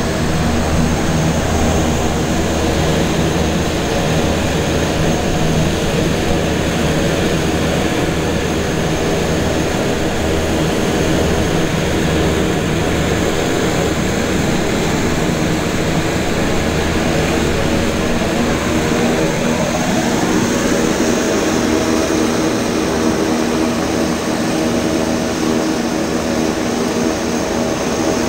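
Propeller aircraft's piston engine running steadily. About two-thirds of the way through, its deep low hum drops away and its pitch bends.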